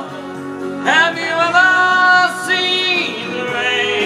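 A man singing long, drawn-out notes over instrumental accompaniment, without clear words.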